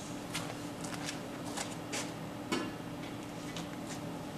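Scattered light clicks and knocks of metal being handled at the bandsaw as the cut stock is taken out and the machine cleaned, over a steady low machine-shop hum.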